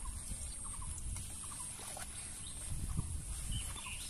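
Quiet open-air ambience with faint, short bird chirps repeating now and then over a low rumble of wind.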